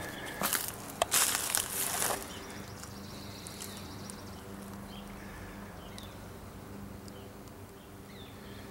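Rustling and footsteps through dry leaves and grass for about the first two seconds, then a faint steady low hum over quiet outdoor background.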